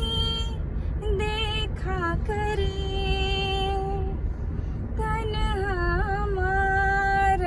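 A woman singing a slow Hindi film-song melody without accompaniment, holding long notes with short slides between them and pausing briefly about halfway through.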